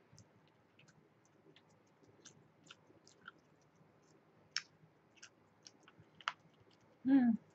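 Person chewing a hoagie with the mouth close to the microphone: many small wet clicks and smacks, with two sharper ones about four and a half and six seconds in. Near the end, a short hummed voice sound falling in pitch.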